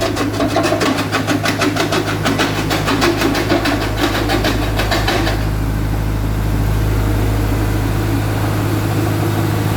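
Jaw crusher running with a steady low hum and a rapid, even clatter that stops abruptly about halfway through, leaving the machine running steadily on its own.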